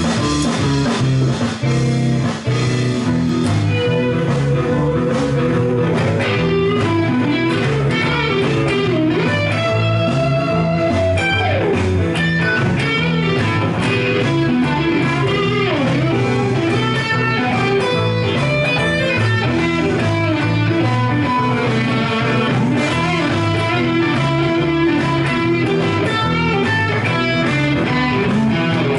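Stratocaster-style electric guitar played through an Egnater amplifier, improvising blues lead lines with a few bent notes.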